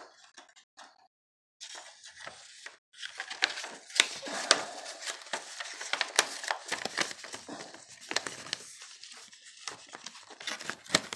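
Paper cover insert rustling and crinkling as it is slid out of a plastic Blu-ray case and turned around, with sharp clicks from the case. It starts about a second and a half in and runs on as a continuous crackle.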